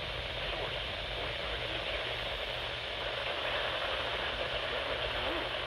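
Steady radio static from a receiver tuned to a weak or empty signal: an even, muffled hiss with no clear voice coming through.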